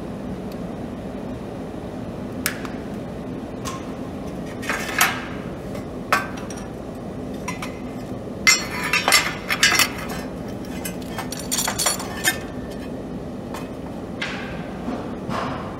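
Scattered metal clinks and knocks as steel square tube pieces and hand tools are handled and set down on a steel welding table, with a cluster of quick clinks in the middle. A steady machine hum runs underneath.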